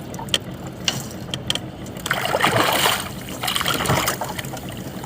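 Water sloshing and splashing, with two louder surges in the second half and a few small sharp clicks in the first half.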